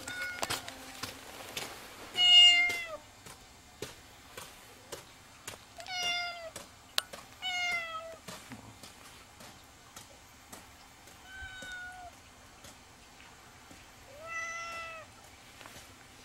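A domestic cat meowing five times, short calls with a slight fall in pitch at the end, the first about two seconds in the loudest. Scattered light clicks sound between the meows.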